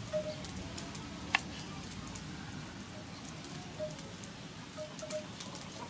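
Kitchen knife slicing limes into wedges on a wooden cutting board: faint scattered taps and clicks, with one sharper click about a second and a half in.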